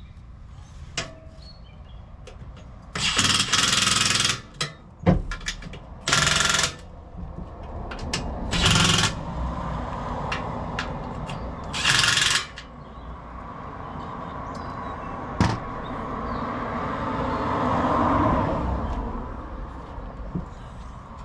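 Cordless power tool run in four short bursts of about a second each, then a longer stretch of steadier mechanical running that grows louder before stopping.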